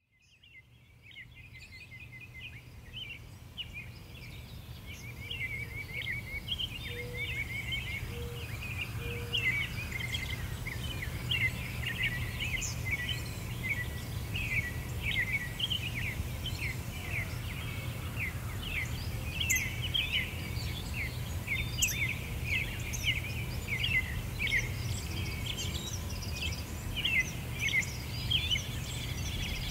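A chorus of many small birds chirping and twittering without a break, over a steady low rumble. It fades in from silence over the first few seconds.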